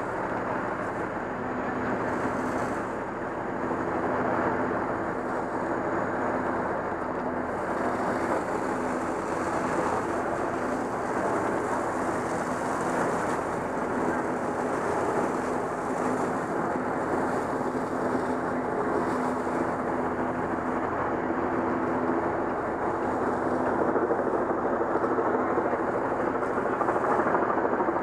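Steady rumbling noise with a low mechanical hum, like engines running, with no bang or impact.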